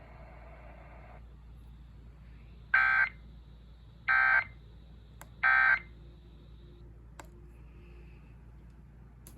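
NOAA Weather Radio's SAME end-of-message code: three short bursts of buzzy digital data tones, each under half a second and about a second and a half apart, marking the close of the weekly test alert.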